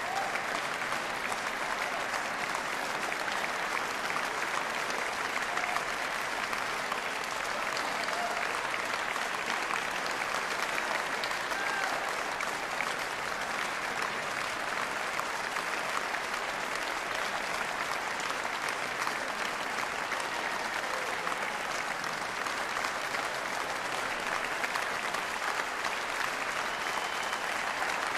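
Audience applauding steadily: a dense, even sound of many hands clapping that holds at one level throughout.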